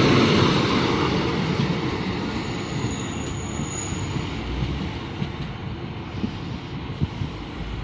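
Diesel multiple unit running alongside the platform, its engine and wheel rumble slowly fading away. A brief thin high whine comes around three seconds in.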